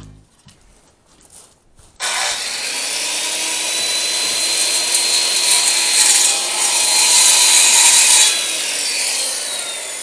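Electric saw starting suddenly and cutting through a siding board with a steady motor whine under a harsh hiss, then spinning down with a falling whine near the end as the cut finishes.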